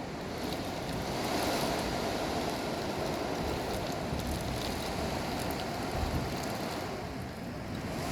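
Hurricane wind blowing hard and steadily, with rain and wind buffeting the microphone.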